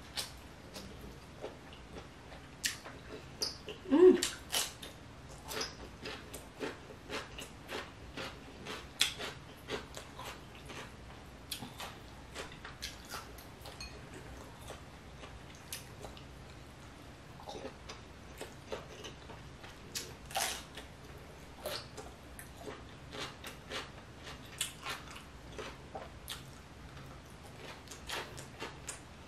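Close-up eating sounds from a person eating seafood-boil king crab and shellfish by hand: wet chewing, lip smacks and finger sucking, as many short irregular clicks and squelches. A brief hum of the eater's voice about four seconds in.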